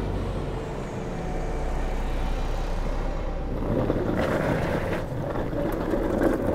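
Longboard wheels rolling over pavement: a steady rumble that turns rougher about four seconds in as the board runs onto block paving. Road traffic sounds underneath.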